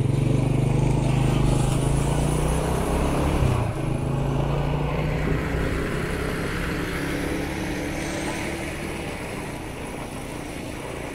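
A road vehicle's engine runs steadily while driving, with tyre and wind noise. The drone shifts suddenly about three and a half seconds in, then gradually fades.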